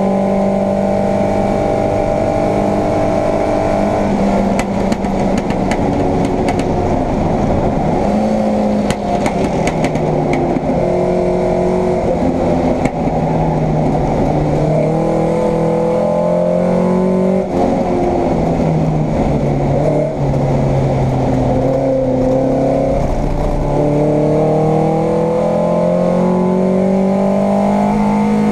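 Vauxhall Firenza racing saloon's engine heard from inside the car under hard driving. The revs climb and fall repeatedly through gear changes and off-throttle moments, with a few short clicks and rattles, then rise steadily near the end under full acceleration.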